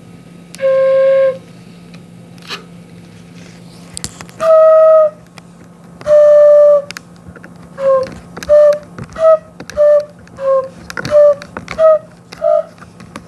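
Homemade PVC pipe organ with open flute pipes sounding one note at a time as its shut-off valves are opened and closed: three held, breathy flute tones, then a quicker run of about eight short notes at slightly different pitches. The pipes are not yet fully tuned.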